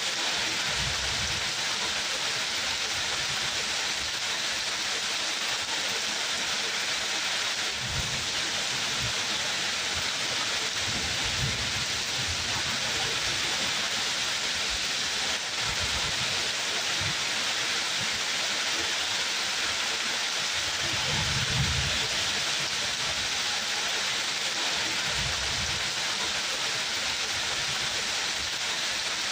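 Steady, heavy rain falling as an even hiss, with brief low rumbles now and then, the loudest a little after twenty seconds in.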